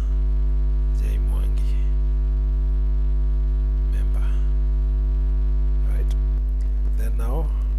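Loud, steady electrical mains hum, a low buzz with a stack of overtones, running unchanged throughout. A faint voice murmurs briefly a few times, most clearly near the end.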